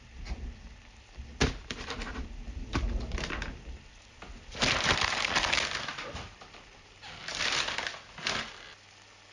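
Foley sound effects made with household objects: a few sharp cracks and clicks, then two longer bursts of crunching about halfway through and near the end, and a last crack shortly after.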